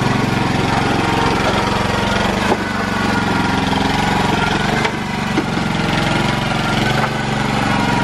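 Small engine of a tracked motor carrier (power barrow) running steadily and loudly as it drives a heavy load along.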